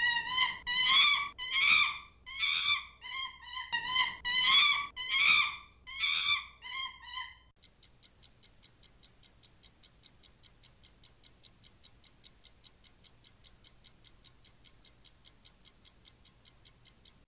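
A run of short pitched toots or calls, each under a second and bending in pitch, then they stop and a quiet, even ticking follows at about four ticks a second.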